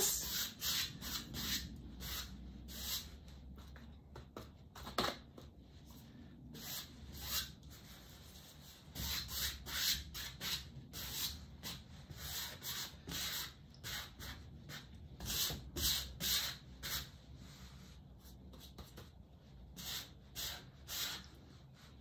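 Large flat paintbrush scrubbing acrylic paint onto a stretched canvas: many short, scratchy bristle strokes in quick runs with pauses between, and the brush dabbed in the paint on the palette now and then.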